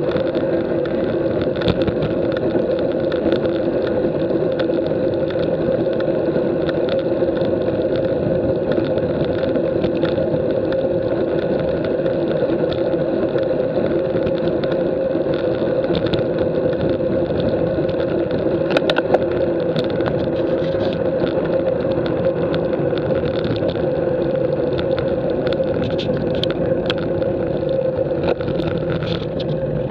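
Steady wind and road noise on a bike-mounted action camera as a road bike rolls along at cycling speed, with a constant drone and a few sharp clicks about two-thirds of the way through and near the end.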